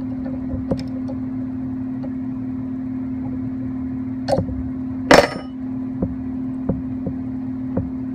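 Scattered light metallic clicks and knocks of hand tools working the gib adjusting screws on a mini lathe's carriage, the loudest a sharper knock about five seconds in, over a steady background hum.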